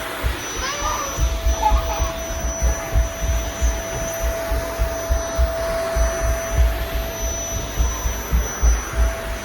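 Household vacuum cleaner running, its motor giving a steady whine over a rushing noise, with irregular low thuds as it is worked back and forth.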